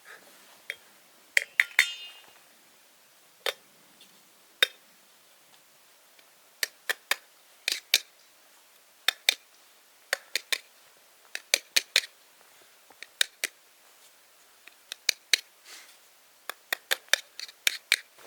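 Irregular light clicks and knocks of small hard objects being handled, often in quick pairs or clusters, with one short ringing clink about two seconds in.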